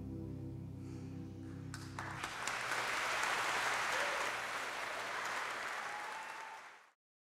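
The song's final held chord rings on and stops about two seconds in, and the audience breaks into applause, which fades out sharply near the end.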